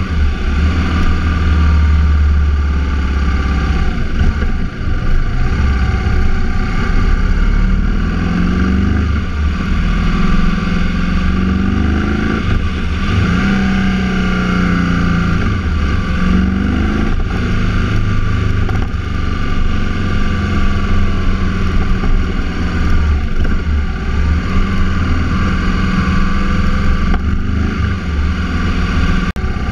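The engine of a moving road vehicle, its revs rising and falling again and again as it speeds up and slows, over a steady rush of road and wind noise.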